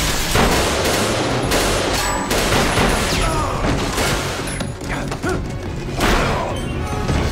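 Firefight sound effects: repeated gunshots and bullet impacts, with an explosion near the start, over a tense music score.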